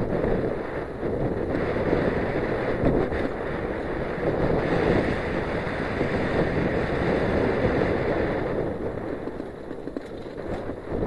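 Wind rushing over the microphone of a camera mounted on a Giant Glory downhill mountain bike descending a dirt trail at speed, mixed with tyres rolling over gravel. The rush eases a little after about eight seconds.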